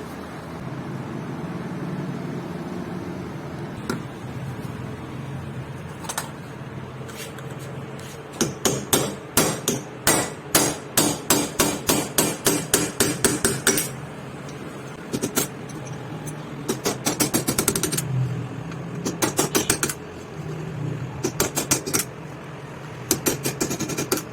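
A hammer striking metal in quick, even runs of blows, about three a second, with short pauses between runs, over a steady low workshop hum.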